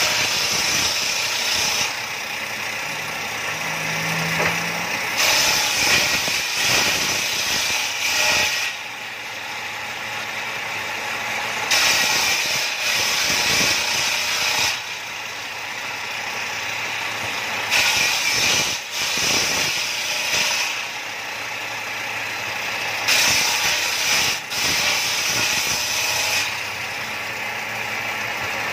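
Bench table saw ripping planks into strips. The sound grows louder and brighter with each cut, about five cuts roughly six seconds apart, and between cuts the blade spins free more quietly.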